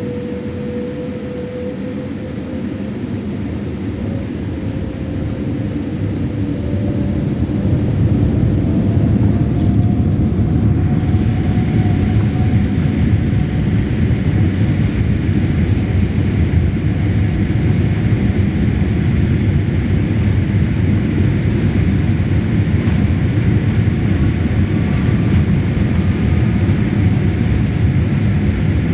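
Boeing 787-8 airliner's jet engines spooling up, heard from inside the cabin: a whine climbs in pitch and the roar grows louder over the first several seconds, then settles into a steady loud roar at takeoff thrust.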